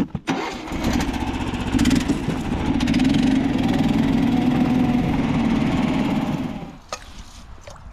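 Jiffy power ice auger running steadily under load as it bores a hole through lake ice, dying away near the end.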